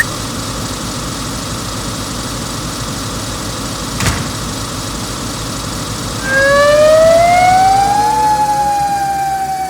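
Emergency-vehicle siren sound effect over a steady engine rumble. There is a single sharp knock about four seconds in. About six seconds in the siren starts, rising in pitch for two seconds and then slowly falling.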